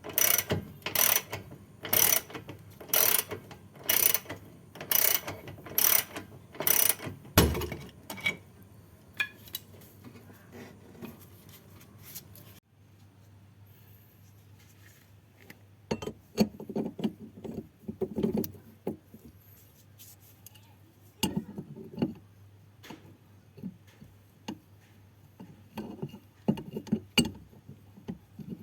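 Ratchet wrench worked in steady strokes, about two clicks a second, for the first seven seconds, ending in a heavier knock. After that come scattered quieter clicks and irregular metal clanks and knocks from tools and parts being handled.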